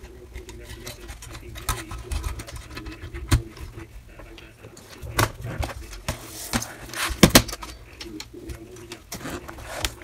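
Hands reassembling a Dell LED monitor, pressing its metal chassis and board shield into the plastic bezel: scattered clicks and knocks of sheet metal and plastic, the loudest a quick cluster about seven seconds in.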